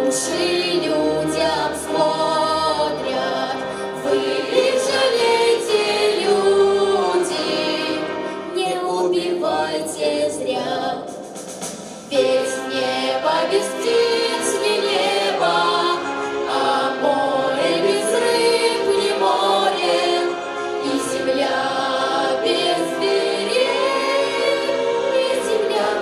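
A school choir of teenage voices singing in parts, the sustained chords rising and falling in pitch, with a brief drop in loudness about twelve seconds in.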